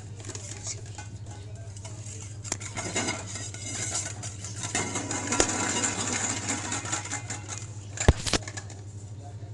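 Pressure cooker hissing steam and rattling, with a steady hiss that swells for a few seconds in the middle, then a single sharp knock near the end.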